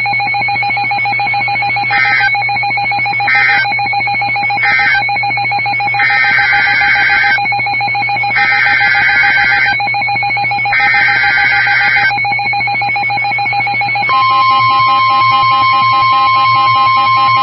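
NOAA Weather Radio alert signalling: three short screechy digital data bursts that end the flash flood warning, then three longer digital bursts that make up the header of the tornado warning. About 14 seconds in, the steady single-pitch 1050 Hz warning alarm tone starts. A constant radio hum and whine runs under it all.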